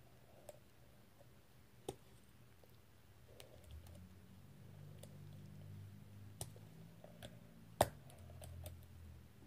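Faint, scattered plastic clicks as fingers pry at a fidget spinner's bearing caps, which stay stuck on; the sharpest click comes near the end. A faint low hum runs under the last half.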